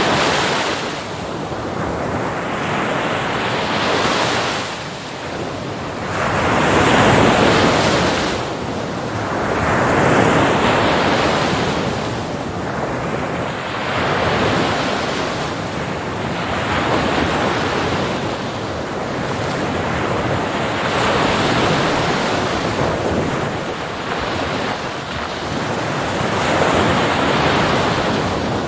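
Ocean waves breaking on a beach, one surge of surf after another every two to three seconds, with wind buffeting the microphone.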